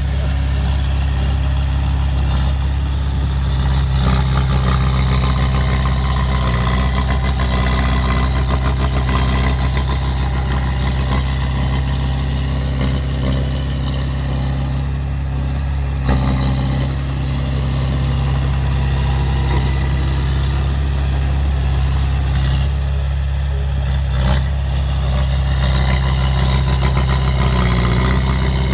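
Heavy diesel engine of earthmoving machinery running steadily, with two brief knocks in the second half.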